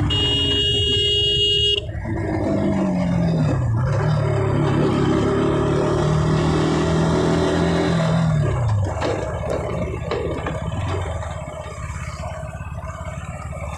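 A horn sounds for about the first two seconds over a KTM RC 200's single-cylinder engine running through its stock exhaust. The engine note drops about two seconds in, holds steady at cruise, then drops again about eight seconds in as the bike slows.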